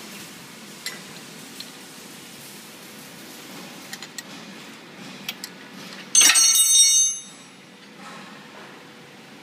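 A few light metallic clicks and taps, then about six seconds in a sudden loud bell-like ringing that holds steady for about a second and stops.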